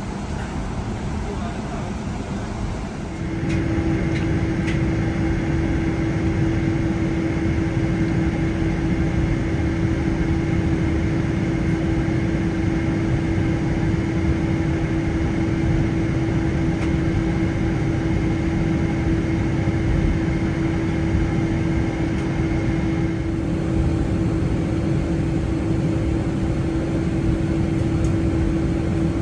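Steady drone inside a Boeing 777-200ER's cabin, engines and air conditioning running, with a constant low hum; it steps up a little louder a few seconds in.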